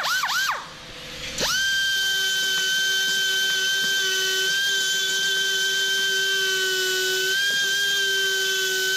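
Pneumatic die grinder with a cone burr grinding down plastic welds on a car trim panel. A couple of quick trigger blips spin it up and down. About 1.5 s in it spins up to a steady high whine that is held until it winds down right at the end.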